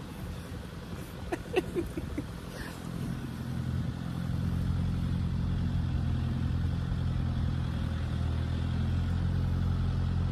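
Farm tractor engine running, growing louder about three to four seconds in and then holding a steady low drone. A few brief squeaks come about a second and a half in.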